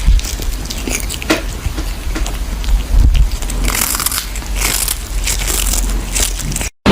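Irregular close-up crunching and crackling, like something crisp being bitten and crushed, over a low rumble; it cuts off abruptly near the end.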